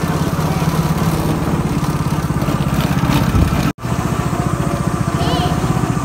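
Small go-kart engine running steadily with a fast, even chugging beat, heard from the kart's seat. The sound cuts out for an instant just past halfway.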